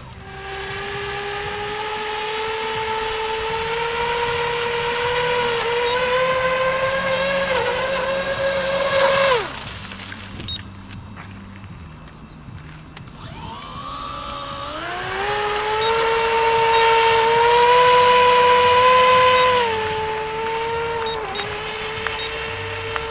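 Twin brushless electric motors with 7x4.5 propellers on an RC flying boat model, whining as it runs across the water. The whine climbs slowly, is throttled back sharply about nine seconds in, rises again from about fourteen seconds, holds, then steps down and fades near the end.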